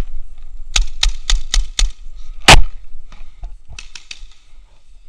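Paintball marker firing a quick string of five sharp pops, about four a second, then one louder single crack a second later and a few fainter pops near the end.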